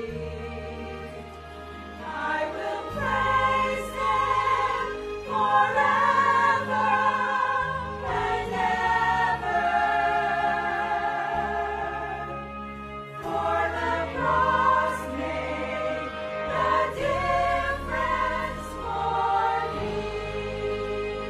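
Mixed church choir singing together over instrumental accompaniment with held low bass notes. The voices swell about two seconds in and break off briefly around thirteen seconds before going on.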